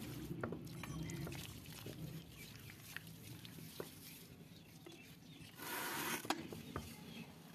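Wet mud plaster being smeared and patted by hand onto the outside of an iron bucket: faint squelching with scattered small clicks, and a brief rushing scrape about six seconds in.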